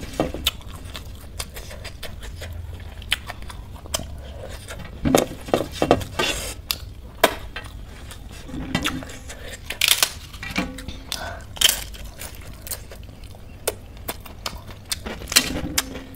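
Fingers scraping and tapping on a stainless-steel plate as rice is gathered up by hand, in scattered short clicks and knocks, with soft eating sounds between.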